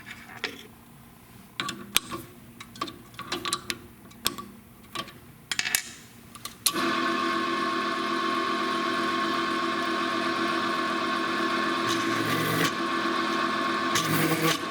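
Clicks and knocks of a countersink being fitted into a drill press chuck. About seven seconds in, the drill press motor starts and runs steadily with a whine, driving the countersink into a metal workpiece.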